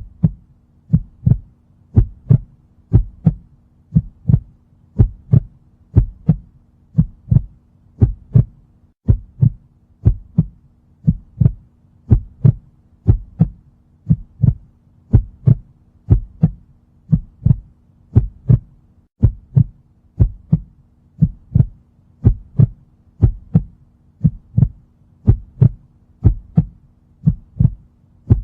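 Heartbeat sound effect: a steady lub-dub double thump about once a second, with a faint steady hum underneath.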